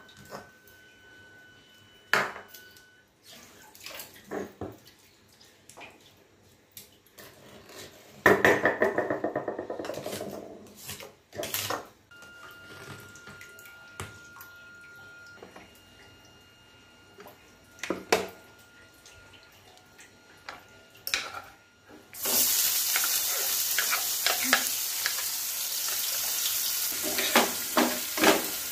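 Kitchen sounds: scattered clinks of utensils and dishes and a short burst of running water, then, from about two-thirds of the way in, a steady sizzle of food frying in a wok with the clatter of stirring.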